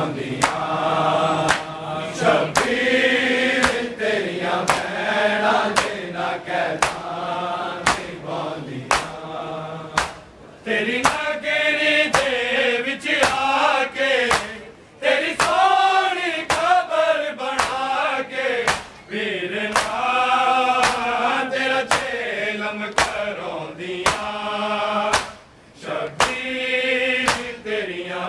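A crowd of men chanting a noha in unison over a steady rhythm of sharp chest-beating slaps (matam), a little over one slap a second. The chant breaks off briefly three times.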